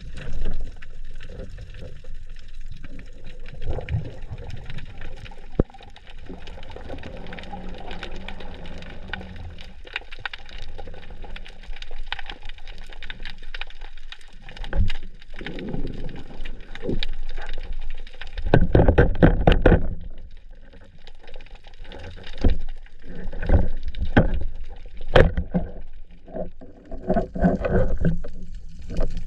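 Sea water sloshing and gurgling, in irregular rushes and bubbling, with a louder rush about two-thirds of the way through.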